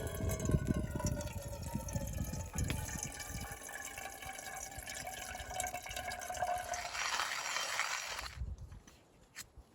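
Water being poured into a container, its ringing pitch shifting as it fills and the splashing growing stronger before stopping abruptly about eight seconds in.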